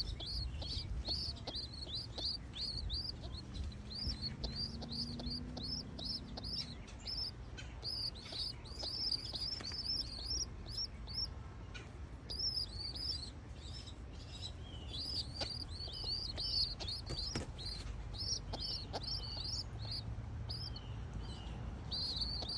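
Young pigeon squabs giving rapid, high-pitched squeaking begging calls, several a second, as the cock pigeon feeds them.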